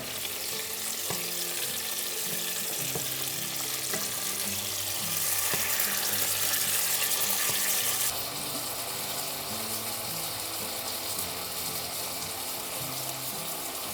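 Food sizzling in a frying pan, a steady hiss that grows louder for a few seconds about halfway through, then drops back.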